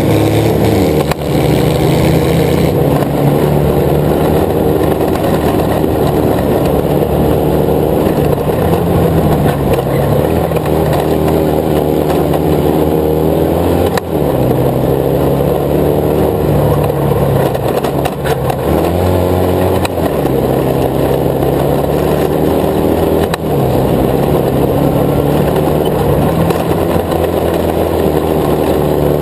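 Racing buggy's engine at full race pace, heard from on board, its pitch climbing and falling again and again as it accelerates and lifts off along a dirt track, with a few brief dips where the throttle is eased.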